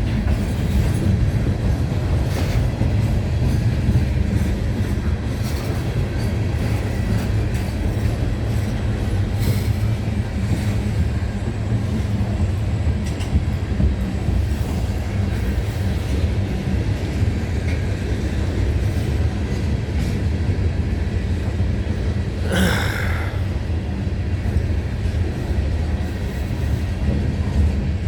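Freight train rolling past with a steady low rumble of wheels on rail and faint clicks. A brief high squeal comes about 22 seconds in.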